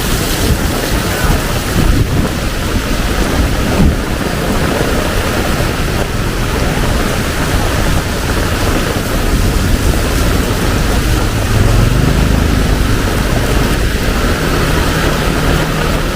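Heavy tropical rain pouring down in a dense, loud hiss, with a deep rumble underneath. A low steady hum, like a vehicle engine, joins about eleven seconds in.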